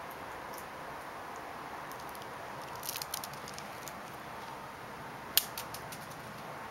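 A few light clicks and taps over a steady faint hiss, the sharpest one about five and a half seconds in, as a small toy ball is handled and tossed across the carpet.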